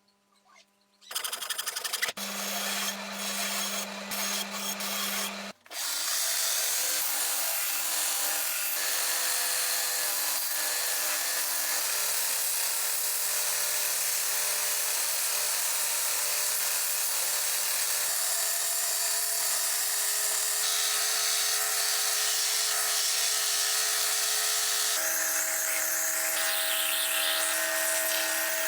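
Small electric power tool running, with a steady motor tone under a harsh hiss. It starts about a second in, stops briefly about five and a half seconds in, then runs on steadily, its pitch stepping a few times.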